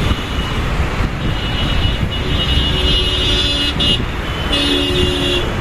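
Road traffic with a steady low rumble. A long pitched tone sounds twice over it, from about two seconds in and again near the end.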